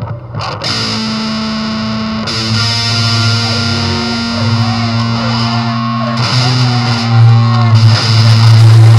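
Music built on heavily distorted, effects-laden electric guitar holding long droning notes. It comes in suddenly just under a second in and gets louder near the end.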